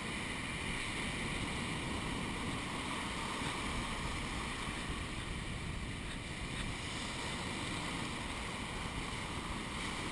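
Steady rush of surf breaking and washing up the shore, with wind noise on the microphone.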